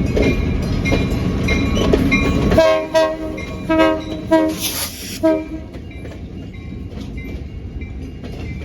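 A CSX freight train running at speed with a loud rumble, which drops away suddenly about two and a half seconds in. A locomotive air horn then sounds about four short blasts.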